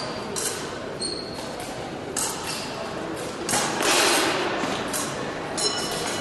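Épée blades clicking and clinking against each other during a fencing bout, some contacts ringing briefly, with thuds of footwork, in a reverberant hall.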